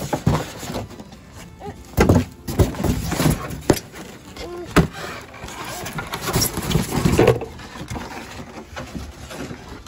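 A large styrofoam packing block being handled and pushed into a cardboard box: a series of knocks, scrapes and rustles of foam against cardboard, busiest from about two to seven seconds in.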